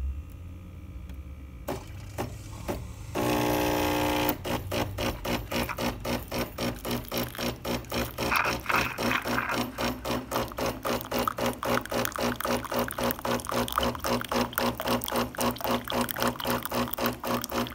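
Nespresso Lattissima Pro capsule machine's pump running while it brews: a few clicks, then a steady buzz for about a second, then a pulsing buzz of about three beats a second that carries on.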